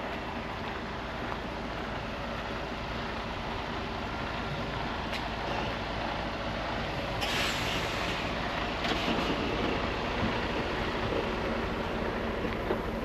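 Road traffic: a steady rumble of passing vehicles, with a short sharp hiss about seven seconds in.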